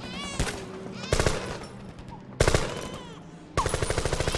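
Bursts of automatic gunfire: a short burst about a second in, another about two and a half seconds in, and a longer rapid burst starting about three and a half seconds in.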